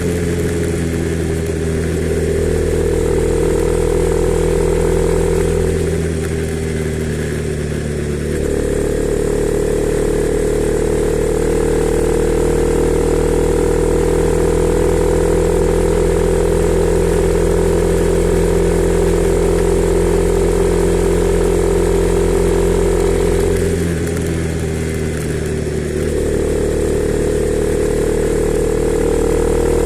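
Honda CB300R's single-cylinder engine running steadily, its pitch easing down briefly twice, about 6 and 24 seconds in, and otherwise climbing slowly.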